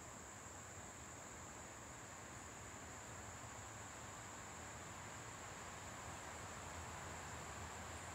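Steady, high-pitched insect chorus, an unbroken drone of singing insects, over a faint low rumble.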